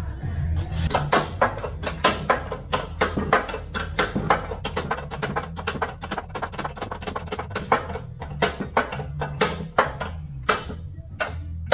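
A rapid, irregular run of sharp metallic clicks, a few a second, from a shop press as a new bearing is pressed down onto the slew motor's pinion shaft. Background music with a steady bass runs underneath.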